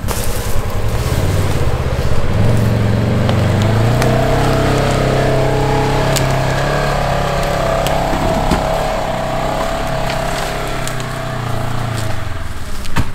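Side-by-side UTV engine running as the machine drives slowly along a rough trail, its engine note stepping up about a second in and easing off near the end, with a wavering whine over it.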